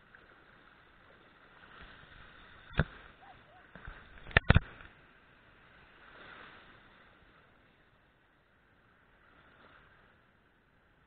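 Faint steady background noise, broken by a single sharp knock about three seconds in and a louder, quick double knock a second and a half later.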